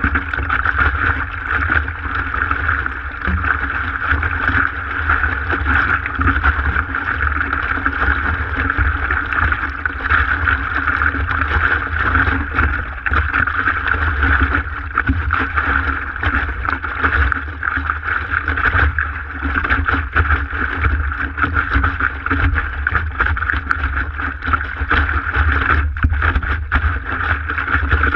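Water rushing and slapping against the nose of a stand-up paddleboard, picked up by a GoPro mounted low on the board, over a constant low rumble. The sound is steady throughout.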